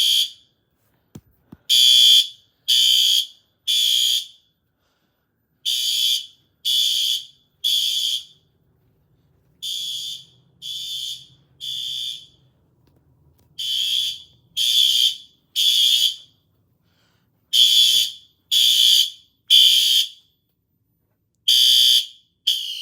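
System Sensor SpectrAlert Advance fire alarm horn sounding the temporal-three evacuation pattern: three half-second blasts a second apart, then a pause, repeating every four seconds.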